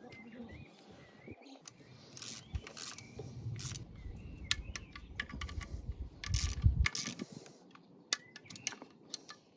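Hand tools clicking and clinking at irregular moments as nuts on an engine's timing cover are tightened, with a heavier clatter of handling about 6 to 7 seconds in. Birds chirp faintly in the background.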